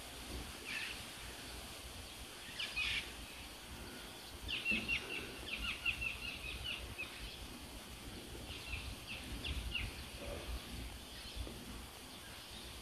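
Wild songbirds in woodland: short high chirps, then a quick run of repeated high notes about halfway through, and a few more chirps after, over a steady low rumble.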